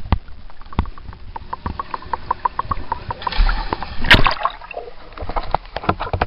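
Pool water heard with the microphone under the surface: muffled sloshing with a quick run of small ticks and clicks, and a louder splash about four seconds in.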